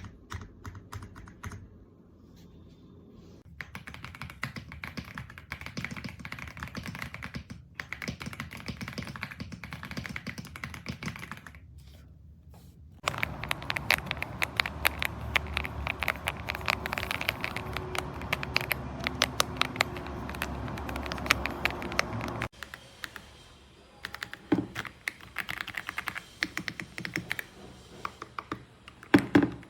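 Typing on the AULA F75 mechanical keyboard's pre-lubed Reaper switches: runs of quick keystrokes with short pauses. A louder, faster stretch runs from about 13 to 22 seconds in, followed by scattered single presses near the end.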